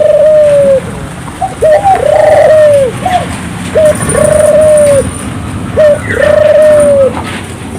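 Puter dove (Barbary ringneck dove) cooing repeatedly, a loud, persistent calling bout. Each phrase is a short rising note followed by a long arched coo, about four phrases in a row.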